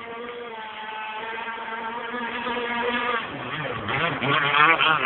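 Petrol RC powerboat's two-stroke engine running on the water, growing steadily louder as the boat comes closer, its pitch bending up and down near the end.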